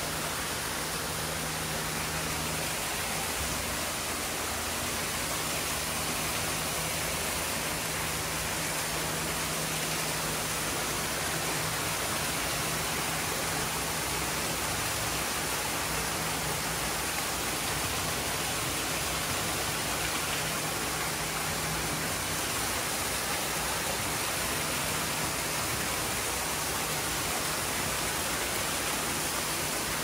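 Steady rushing noise with no breaks, and under it a low hum that fades a few seconds in and comes back about two-thirds of the way through.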